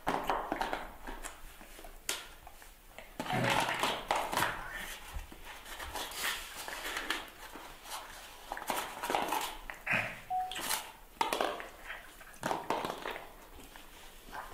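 Irregular close chewing and sucking noises from a puppy gnawing a plastic ball and a baby macaque sucking on a bottle, with a brief high squeak about ten seconds in.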